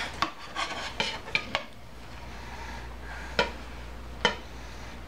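Large kitchen knife sawing through a burger on a plate, the blade scraping and clicking against the plate several times in quick succession, then two single sharp taps about a second apart.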